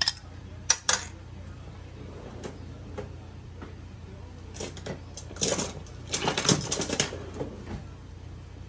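A spatula scraping and tapping against the rim of a ceramic bowl as the last of the beaten egg yolk is scraped out. There are a couple of sharp clicks about a second in, then a quick run of scrapes and taps past the middle.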